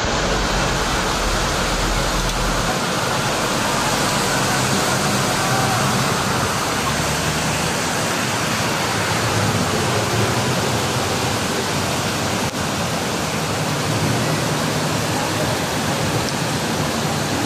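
Heavy rain pouring down onto a flooded street: a dense, steady hiss of rain and running water, with a low rumble in the first few seconds.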